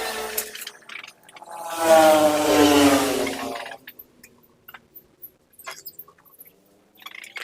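A motor running in short bursts: once as it begins, then again for about two seconds with its pitch sagging slightly. After that come only light clicks and taps of metal parts being handled.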